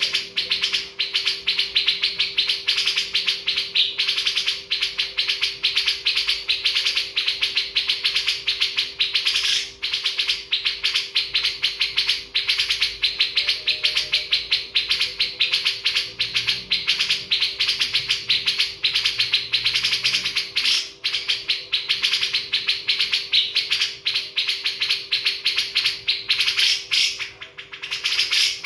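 Many birds chirping rapidly and continuously, with a faint steady hum underneath.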